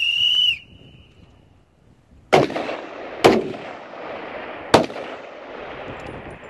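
Three high-powered rifle shots, the second about a second after the first and the third about a second and a half later, each followed by a long fading echo. Just before them comes a short high-pitched tone lasting about half a second.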